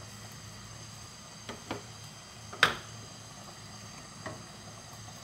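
A wooden spoon knocking against a nonstick frying pan of simmering cream sauce: four short knocks, the loudest about halfway through, over a low steady hum.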